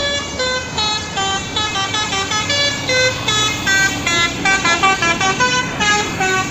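A multi-tone vehicle horn plays a quick melody of short notes, about four or five a second, over a steady background noise.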